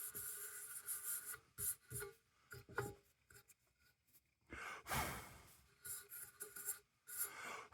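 Faint, intermittent scraping and rubbing of lantern parts being handled, with a few light clicks and a longer scrape about five seconds in.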